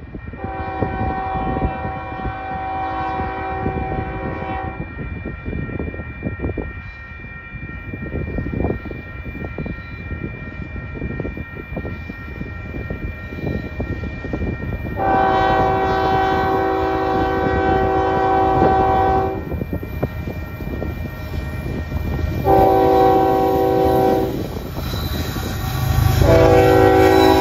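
Union Pacific ES44AC diesel locomotive sounding its multi-chime air horn in the grade-crossing pattern: two long blasts, a short one, then another long one starting near the end. The locomotive's rumble grows louder as it draws close.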